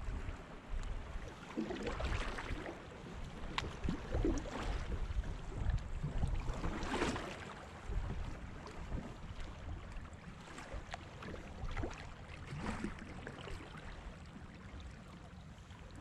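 Kayak paddle strokes dipping and splashing in moving river water, a few separate swishes over the span, over a steady low rumble of wind on the microphone.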